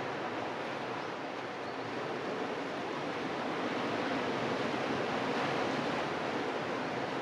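Sea surf washing against a rocky shore below cliffs: a steady rush of water that grows a little louder partway through.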